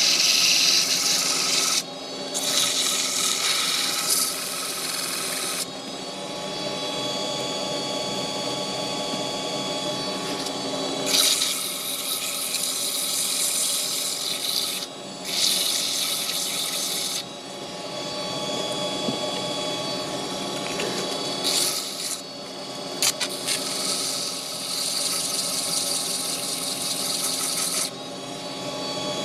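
Wood lathe running with a steady hum, while a tool is pressed against the spinning wood in repeated stretches of a few seconds each, giving a hissing scrape that stops and starts.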